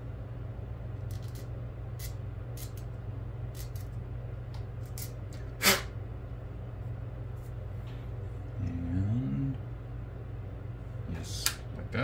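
Steady low hum with scattered faint clicks, one sharper tap about halfway through, and a short low sound that rises in pitch about three-quarters of the way in.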